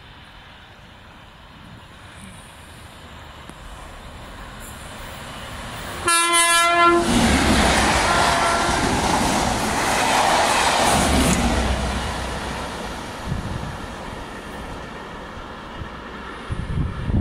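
GBRf Class 73/9 locomotives and a test train approaching at speed, sounding one short horn blast about six seconds in, then rushing past the platform at around 65 mph in a loud roar of wheels and wind that fades away as the train recedes.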